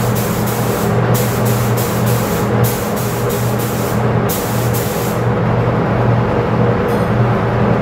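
Gravity-feed spray gun spraying a protective coating onto a metal plate in short hissing bursts, several in quick succession, stopping a little past halfway. A steady low hum runs underneath.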